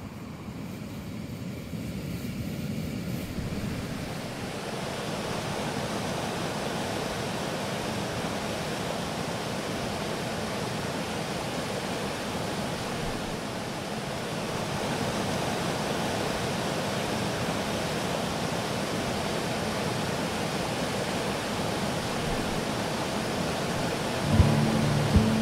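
A steady, even rushing noise of outdoor ambience that fades up over the first few seconds and then holds. About a second before the end, music comes in with a few low notes.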